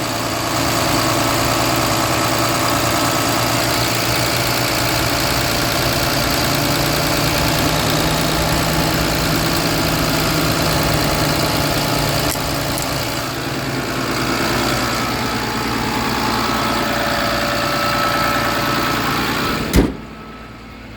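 Dodge 5500 truck engine running at a steady idle with the PTO engaged, filmed up close for a blow-by check. A sharp knock near the end, after which the sound drops off.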